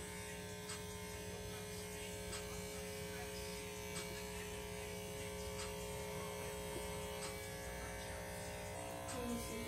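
Corded electric hair clippers running with a steady buzz as they cut short hair at the back of a man's head.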